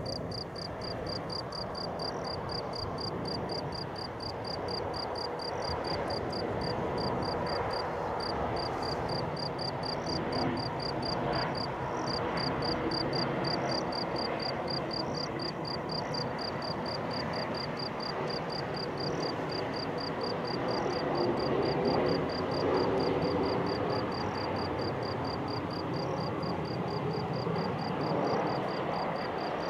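Boeing 737-800's CFM56 jet engines on final approach to landing: a steady rushing jet noise that swells as the airliner draws nearer, loudest about two-thirds of the way through and again near the end. Over it, an insect chirps rapidly and steadily, about four chirps a second.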